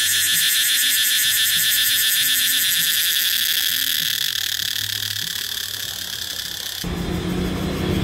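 Cicada calling: a loud, steady, high-pitched buzz with a fast pulsing texture, fading over a few seconds. About seven seconds in it cuts to the low rumble of road traffic.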